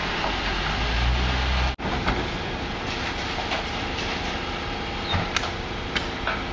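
Garbage truck with a Faun Variopress rear-loading body running at the kerb: its diesel engine and hydraulic bin lifter work with a heavy low rumble for the first couple of seconds. After that it runs more steadily, with a few sharp metal clanks from the bins and lifter near the end.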